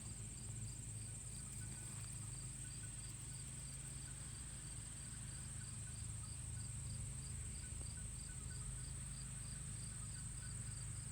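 Insects trilling outdoors: one continuous high-pitched trill, with a second insect chirping regularly about twice a second and a steady low rumble underneath.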